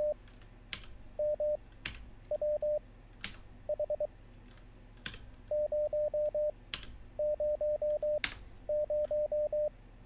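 Morse code practice tone at 23 words per minute, one steady beep keyed into dits and dahs, sounding six single characters of a few elements each. After each character a single computer-keyboard keystroke clicks as the answer is typed.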